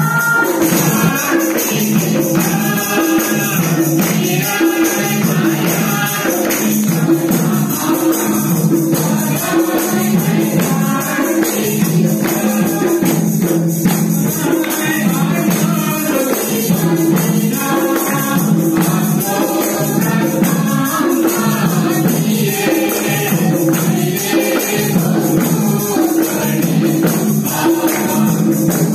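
A Christian worship song: a group singing in unison with a tambourine shaken steadily in time, over a steady held accompaniment.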